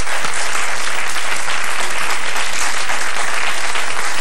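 Studio audience applauding, a dense, steady clapping with no let-up.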